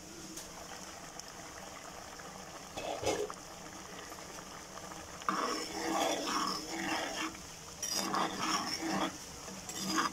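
A glass lid is lifted off a pot about three seconds in. Then a ladle stirs thick, steaming vegetable curry in the pot, in two spells of scraping and stirring sounds.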